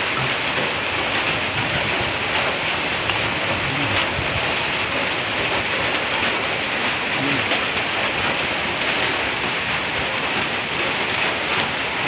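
Steady rain falling on a corrugated zinc roof, a constant noisy hiss.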